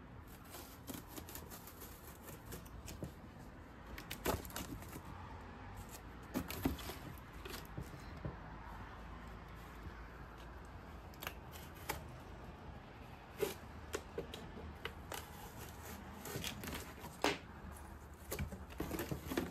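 Cardboard being handled and worked: irregular rustles, scrapes and light taps, a few sharper clicks among them.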